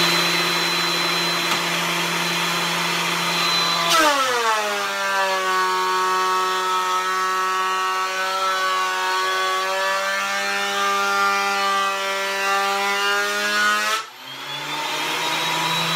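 Benchtop thickness planer running loud with a steady whine. About four seconds in its pitch drops and stays lower while the glued cherry-and-maple board is fed through the cutterhead under load, then rises back near the end as the board clears.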